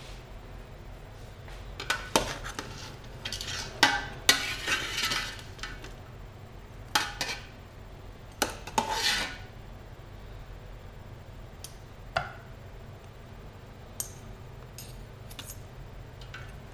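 A ladle scraping and clinking against the inside of a metal pressure-cooker pot as chicken adobo is stirred. The clinks come in several bursts in the first half, then a few single light clinks.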